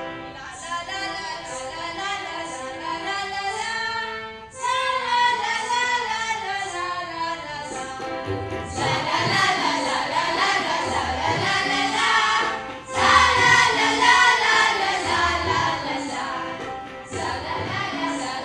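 A group of children singing a song together in chorus, with two short breaks between phrases; about halfway through a low steady beat joins the singing.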